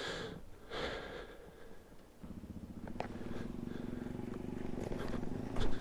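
A motorcycle engine comes in about two seconds in, running at a steady low speed and slowly getting louder.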